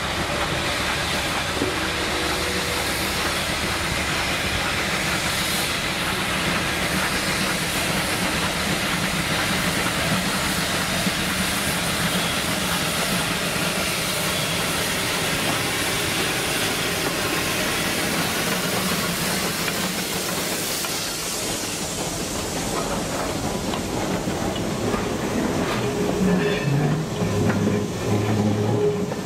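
Heisler geared steam locomotive working steadily past with a steam hiss, pulling a train of logging and excursion cars. Near the end the sound grows louder and more uneven as the wagons' wheels clatter over the rail joints.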